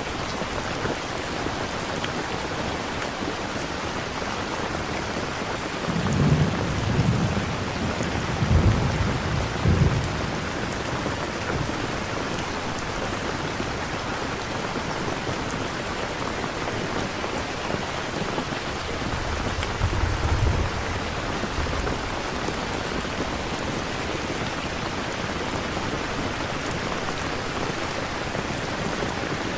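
Steady rain falling, used as a background ambience track, with low rumbles of thunder twice: one rolling peal about six seconds in that lasts several seconds, and a shorter one about twenty seconds in.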